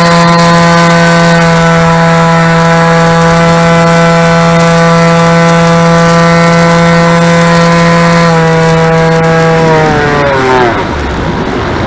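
Bixler 2 RC glider's brushless electric motor and pusher propeller whining steadily at constant throttle, heard up close from the plane's onboard camera. About eight seconds in, the pitch falls away as the throttle is cut, leaving air rushing past.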